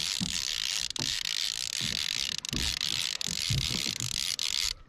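Fishing reel ratcheting steadily as a big tope, hooked and staying deep, pulls against the line. A few dull knocks sound underneath.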